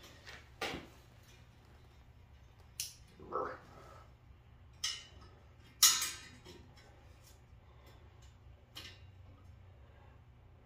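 Scattered handling noises as a wet pillowcase of mushroom substrate is twisted and hung by its cord from a hook on a metal frame: half a dozen short clicks, knocks and rustles, the loudest about six seconds in, over a faint steady low hum.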